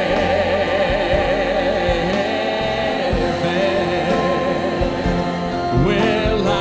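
Church choir holding the last word of a gospel chorus with vibrato, then the band's keyboard and electric guitar play on alone.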